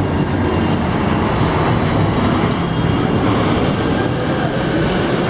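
UPS Boeing 747-400 freighter passing low overhead on landing approach with its landing gear down, its four turbofan engines making a loud, steady roar.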